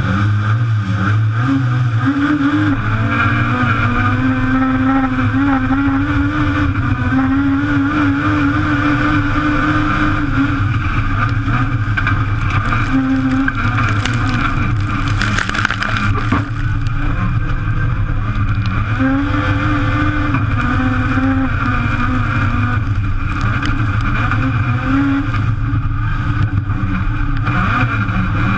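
Vauxhall C20XE 2.0-litre four-cylinder race engine on individual throttle bodies, heard loud from inside the cabin, revving hard, its pitch climbing and falling again and again as the sequential gearbox is shifted. A burst of harsh noise comes about halfway through.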